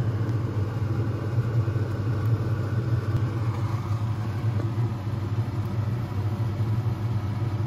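Steady low mechanical hum of a running kitchen appliance, with a faint sizzle and bubbling from the chicken simmering in butter sauce and the boiling pot of rice.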